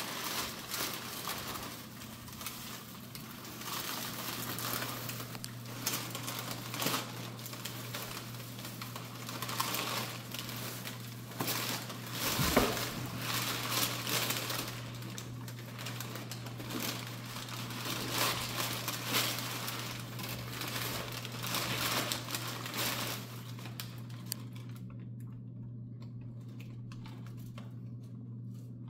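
Black-and-white tegu lizard burrowing through crumpled brown packing paper and against cardboard boxes: irregular crinkling and rustling in bursts, dying down about 25 seconds in. A steady low hum runs underneath.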